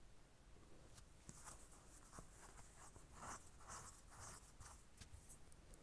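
Faint, irregular scratchy scraping with a few light taps, about two strokes a second, as chopped onion is handled on a board and into the minced meat.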